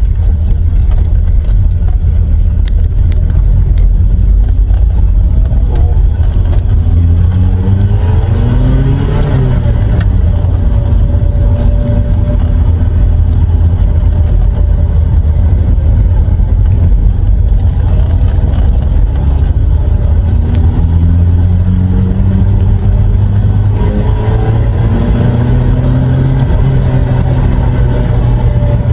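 1986 Volvo 745's B230F four-cylinder engine driving the car, a steady low rumble. The engine note climbs as it accelerates about a quarter of the way in, drops back, then climbs again about two-thirds through.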